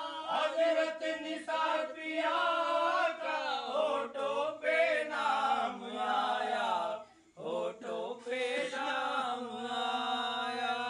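Two men singing a devotional Urdu song together into a handheld microphone, long wavering sung lines with a short break for breath about seven seconds in.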